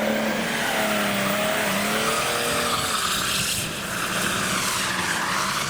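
Cars driving away on a wet road: engines running with wavering pitch over a steady hiss of tyres on wet tarmac, with a car horn tone trailing off in the first moment.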